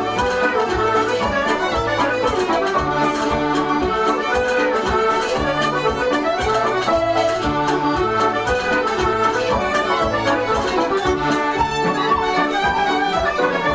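Instrumental passage of a recorded Irish folk-rock song, led by accordion over a steady beat and a moving bass line.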